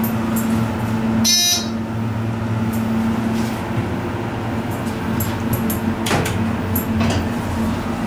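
ThyssenKrupp hydraulic elevator running, its pump motor humming loudly and steadily through the cab as the car travels up. A short electronic chime sounds about a second in as the car reaches a floor, and a few clicks follow later.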